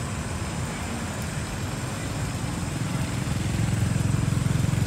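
A small engine running steadily with a low, rapidly pulsing rumble that grows louder about three and a half seconds in.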